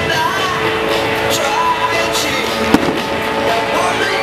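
Music playing throughout, with a single sharp firework bang about two and a half seconds in.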